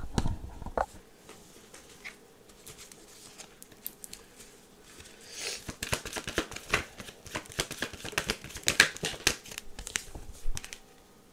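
Tarot cards being shuffled by hand: a few low thumps at the start, then a dense run of quick flicking snaps of card against card through the second half that stops shortly before the end.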